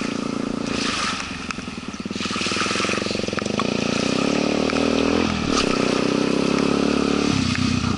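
An engine running steadily, its pitch stepping up or down a few times.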